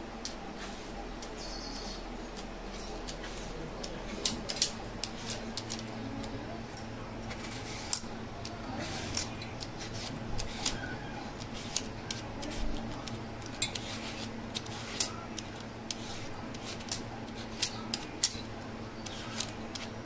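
Vegetable peeler scraping skin off a cucumber in short, irregular strokes, with light metallic clicks against a steel plate, over a low steady hum.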